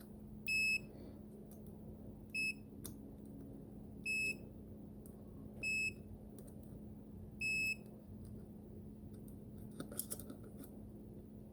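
Continuity tester, likely a multimeter, giving five short high beeps about every two seconds as the probes close circuits across the fuses. Each beep signals a good connection. A few light probe clicks come near the end.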